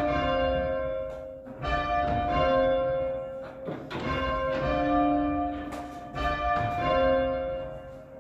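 Church bells rung full-circle from ropes in change ringing: rows of overlapping strikes that ring on, with a short break about every two and a half seconds.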